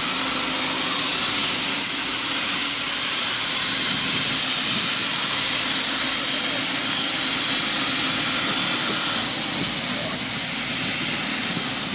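Steady, loud hissing from a pipe-lining rig as a liner is fed into it.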